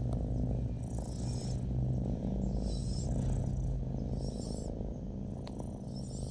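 Domestic cat purring steadily: a low, continuous rumble, with a faint high hiss coming back about every second and a half.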